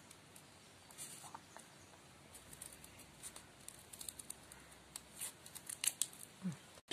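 Scissors snipping through a folded stack of paper in a string of short, faint cuts that come more often and a little louder toward the end.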